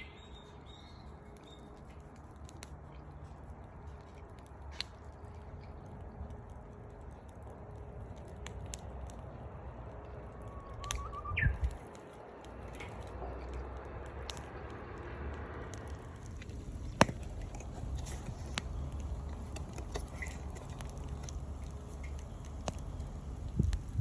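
Wood fire crackling, with scattered sharp pops from the burning firewood. About halfway through, a Japanese bush warbler calls once, a short whistle rising at the end.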